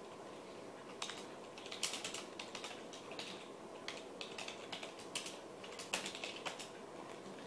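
Typing on a slim computer keyboard: irregular key clicks that start about a second in, come in quick flurries, and stop near the end.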